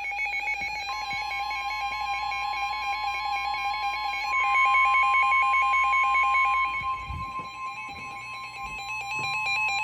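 Emergency Alert System attention signal: a steady two-tone alarm (853 Hz and 960 Hz), the higher tone joining about a second in. It grows louder about halfway through and cuts off sharply at the end, announcing the severe thunderstorm warning.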